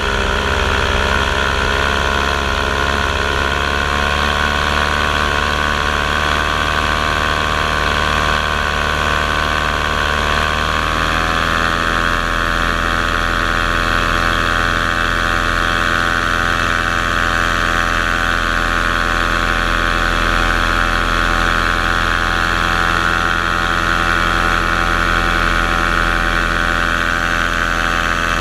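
Paramotor engine running steadily in flight. About eleven seconds in, its pitch rises as the throttle is opened for a climb, then it holds at the higher revs.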